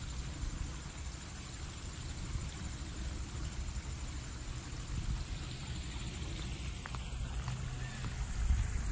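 Outdoor background sound: a steady low rumble with a faint hiss, and two faint clicks about seven seconds in. No distinct event stands out.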